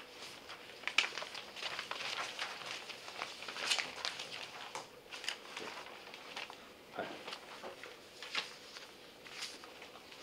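Quiet room tone with scattered soft clicks and rustles of sheets of paper being handled.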